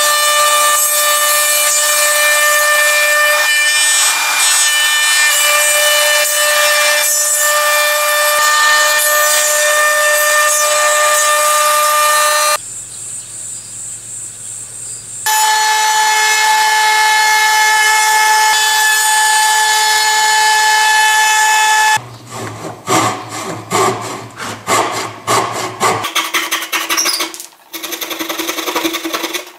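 Makita compact trim router running at full speed with a steady high whine as its bit routs a mortise in pine, dropping to a lower, quieter hum for a moment before cutting again at a different pitch. In the last quarter, a handsaw cutting wood in quick, irregular strokes.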